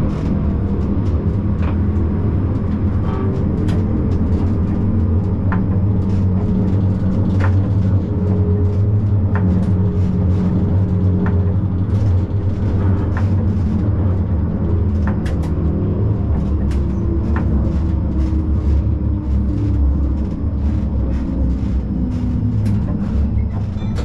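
Siemens Combino tram running along the track, heard from the driver's cab: a steady low rumble and hum with frequent sharp clicks from the wheels on the rails.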